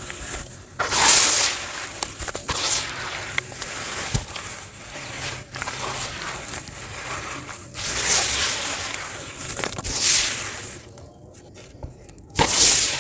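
Wet sand being squeezed and crumbled by hand in a plastic bucket, clumps breaking apart and dropping back into the wet sand and water: a string of irregular gritty, crackly bursts, with a short lull near the end before one last loud burst.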